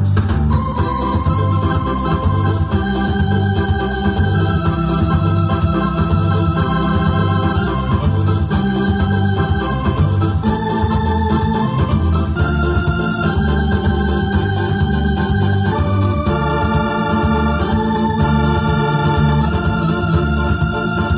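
Electronic arranger keyboard played live with an organ-like voice: held melody notes over an automatic accompaniment of a repeating bass line and a steady drum-machine beat.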